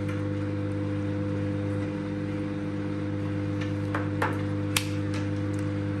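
Microwave oven running on full power with a steady hum, while it is failing to heat the water inside: the customer's no-heat fault. A few light clicks and taps in the second half.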